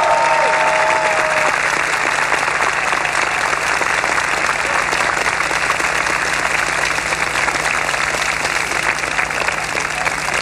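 A large outdoor crowd applauding, a dense steady clatter of many hands clapping. A held shout from the crowd trails off in the first second and a half.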